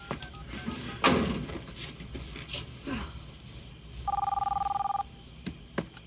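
A telephone ringing once, a warbling two-tone ring of about a second starting about four seconds in: a call going through before it is answered. A thump about a second in is the loudest sound.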